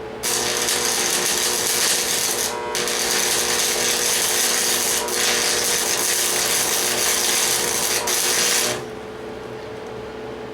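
A metalworking tool running on steel, a loud steady hissing din that breaks off for a moment about two and a half seconds in, then runs on and stops suddenly near the end.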